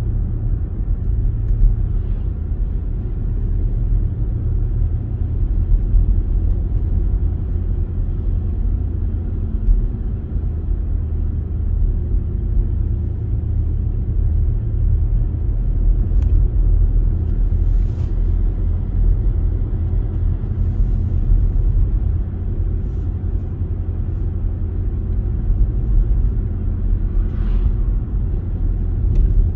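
Steady low rumble of a car driving on an asphalt road, engine and tyre noise heard from inside the cabin.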